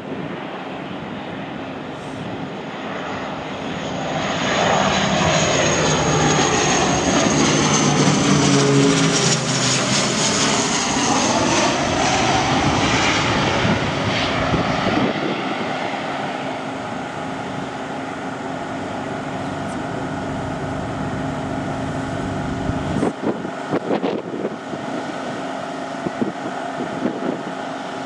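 Dornier 328-100's twin Pratt & Whitney Canada PW119 turboprops on final approach flying close overhead. The propeller drone and a high turbine whine grow louder to a peak about ten seconds in, then drop in pitch as the aircraft passes and fade to a steadier, lower drone.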